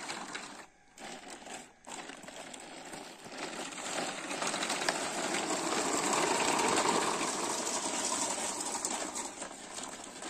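Plastic toy dump trucks pushed along gravel, their wheels crunching and rattling over the loose stones. The rattling grows louder through the middle and eases off toward the end.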